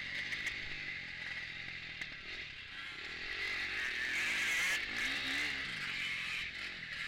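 KTM 250 four-stroke motocross bike engine heard on board while riding hard on a dirt track, revs rising and falling through the corners. The engine note eases off early on and picks up again about four seconds in.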